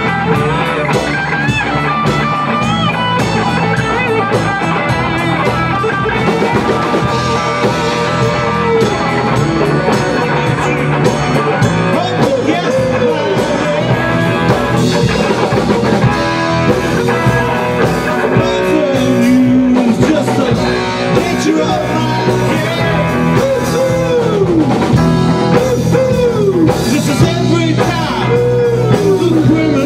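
Rock band playing live in a small rehearsal room: two electric guitars, a bass guitar and a drum kit, with a man singing lead over them.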